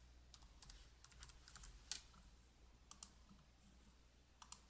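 Faint computer keyboard keystrokes as a password is typed, with a few sharper clicks, including close pairs near three seconds in and near the end.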